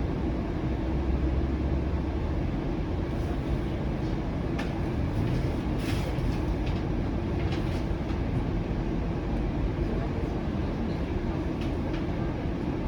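Flexity Outlook low-floor streetcar running along the track, a steady rolling rumble that is heaviest for the first couple of seconds. Short clicks and rattles from wheels and fittings come through the middle stretch.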